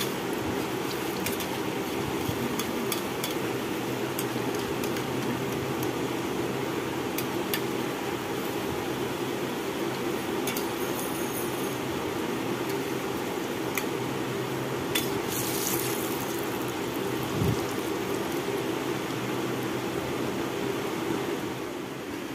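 Mango malpua deep-frying in a wok of hot oil, a steady sizzle, with a few sharp clinks of a perforated metal skimmer against the pan.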